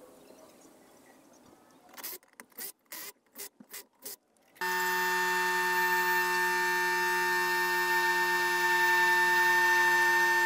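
Pneumatic impact wrench on a truck wheel's lug nuts: a few short bursts, then a steady continuous run from about halfway in.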